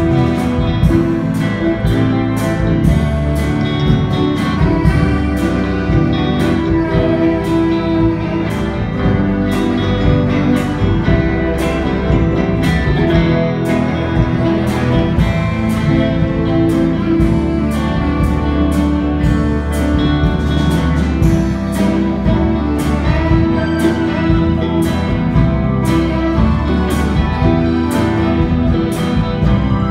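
Live rock band playing with guitars and bass over a steady beat.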